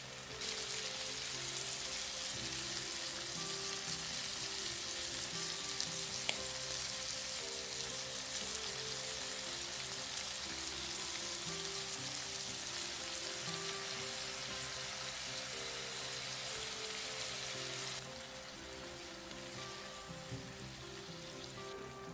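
Food sizzling in a hot frying pan, a steady hiss that drops noticeably quieter near the end, with soft background music underneath.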